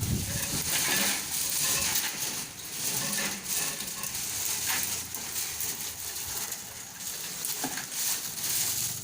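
Raw kerupuk crackers rattling and clattering as they tumble through a cracker-separating machine: a dense crackle of many small clicks.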